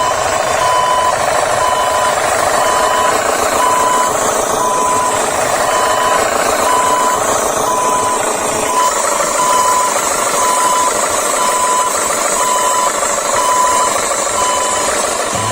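Vehicle engine running steadily while a reversing alarm beeps at an even pace, about once every 0.8 seconds, the beeping stopping shortly before the end.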